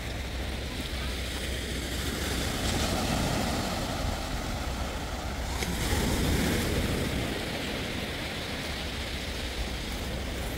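Waves washing on the shore with wind buffeting the microphone, an even rushing noise over a low rumble that swells a little past the middle.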